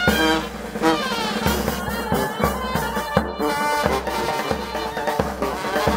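Music with drums and brass instruments.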